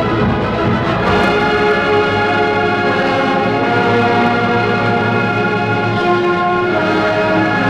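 Municipal wind band playing long held brass chords, played back from a vinyl LP.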